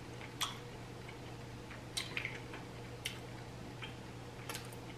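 A few faint, scattered clicks of eating: quiet mouth sounds while chewing mussels, and shells shifting in the glass dish as fingers pick through it.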